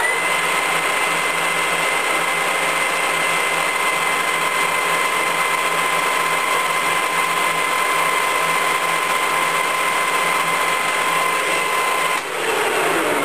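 Colchester Mascot geared-head lathe spinning its chuck at 890 rpm: a steady whine with two clear tones over the gear noise. About twelve seconds in, the whine stops.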